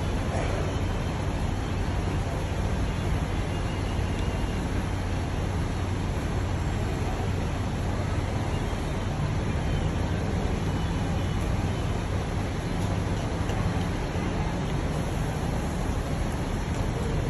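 Steady low rumble of diesel buses idling in a bus interchange, with a constant low hum and no single vehicle passing close.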